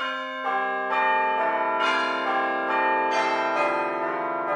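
Bells ringing in a sequence of struck notes, a new note about twice a second, each left ringing on under the next.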